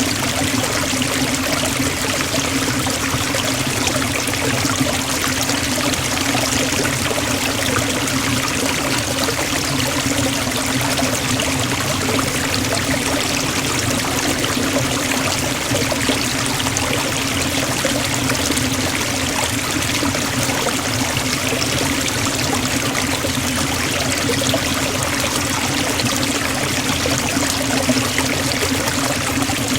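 Waterfall pouring into a forest stream: a steady, even rush of falling water with no breaks.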